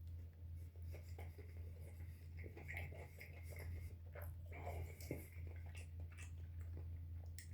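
Faint eating sounds: a sandwich being chewed and handled, with scattered small clicks and scratchy rustles, over a low steady hum.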